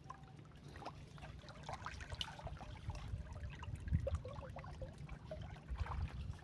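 Water sloshing and trickling around a small wooden outrigger boat that has taken on water and is close to swamping, with scattered light clicks and a few dull knocks against the hull, the strongest about four seconds in.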